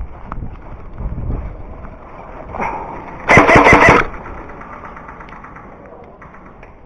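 Airsoft electric rifle firing one short full-auto burst, a loud rapid rattle of about two-thirds of a second, a bit past three seconds in, amid low rustling of the player moving.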